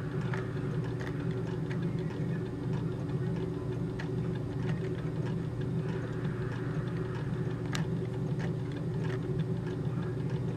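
A steady low hum, with light ticks scattered irregularly through it.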